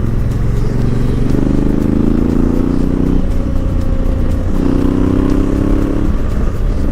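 Honda Africa Twin's parallel-twin engine running as the motorcycle is ridden, its pitch rising slowly and dropping about three seconds in and again near the end.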